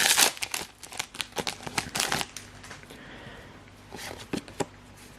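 Foil booster-pack wrapper crinkling and rustling as it is torn open, busiest in the first two seconds, then quieter handling with a few light taps.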